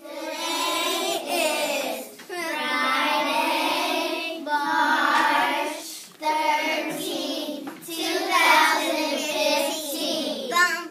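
Young children singing a song together, in sung phrases of a second or two with short breaks between them.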